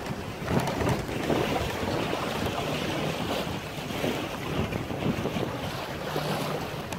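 Wind buffeting the microphone and choppy water splashing against the hull of a 19-foot O'Day Mariner sailboat under sail, a steady rushing noise that rises and falls with the gusts and the chop.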